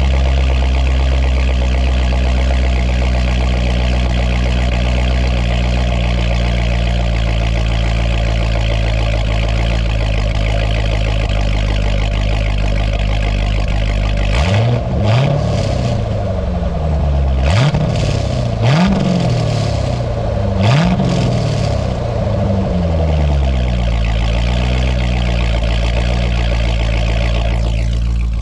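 Chevrolet C6 Corvette's LS3 V8 running through a Corsa X-pipe and NPP mufflers soon after a cold start, idling steadily. About halfway through it is revved four times in quick succession, each blip rising sharply and falling back to idle.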